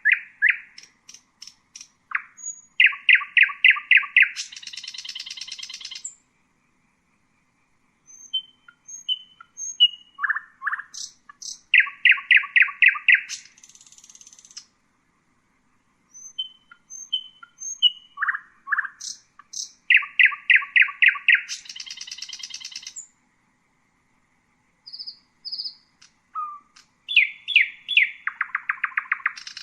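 Common nightingale singing in four separate phrases with short pauses between them. Each phrase has a few thin whistles, then a fast, even run of loud repeated notes, and ends in a buzzy rattle.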